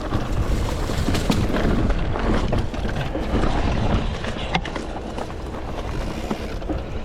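Electric mountain bike ridden over a rough dirt trail: steady tyre and frame rumble with scattered knocks and rattles.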